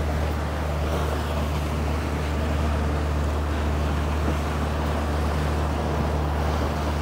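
A motor cruiser's inboard engine drones steadily while the boat is under way, heard from inside the cabin, over a constant rush of water and wind.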